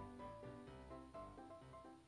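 Quiet background music: a melody of short notes changing a few times a second over a soft bass line.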